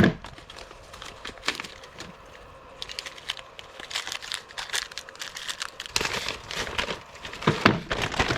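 Packaging crinkling and rustling in irregular bursts as new RC crawler tires and wheels are taken out of their box, with a knock at the start and the busiest handling near the end.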